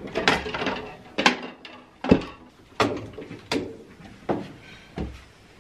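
A clothes steam cupboard's door opening, then a string of sharp clicks and knocks, about one a second, as the garments on hangers inside are handled.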